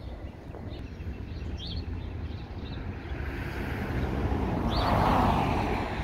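A vehicle passing on the street, its noise swelling to a peak about five seconds in and then fading, over a low steady rumble. Small birds chirp briefly now and then.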